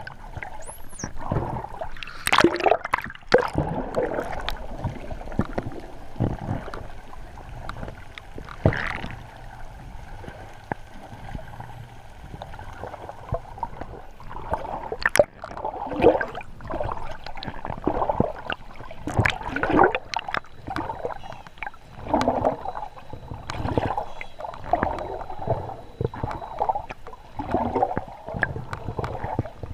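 Wild dolphins heard underwater: a busy, irregular mix of clicks, buzzing pulsed calls and a few rising whistles.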